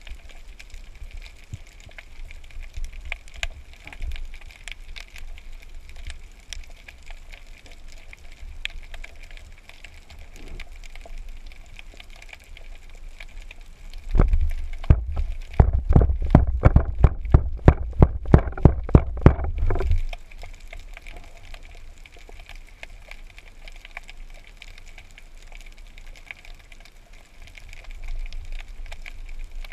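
Underwater ambience picked up by a camera on a speargun: a steady hiss with faint crackling and a low rumble. In the middle stretch, a rapid series of loud knocks comes at about three a second for some six seconds, then stops.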